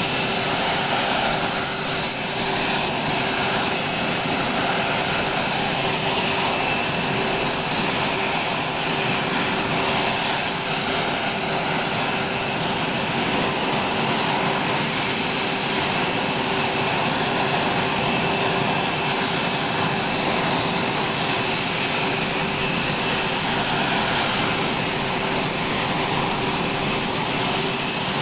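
A jet aircraft running on the ramp: an unchanging rushing noise with several steady whining tones over it.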